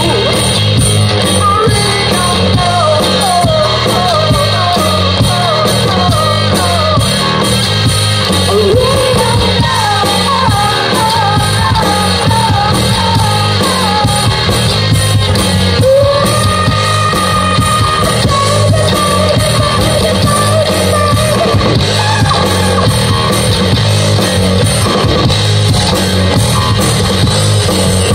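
Live rock band playing loud through a PA: electric guitars, bass and a drum kit driving a steady beat, with a vocalist singing over them.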